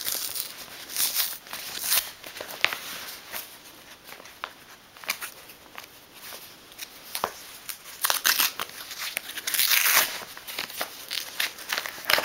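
Yellow padded paper mailer being torn open by hand: scattered crinkles and small rips of paper and tape, with a longer run of tearing about eight seconds in.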